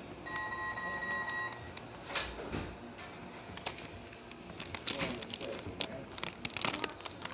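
Checkout point-of-sale terminal: one steady electronic beep held about a second, followed by a run of sharp clicks and clatter at the counter.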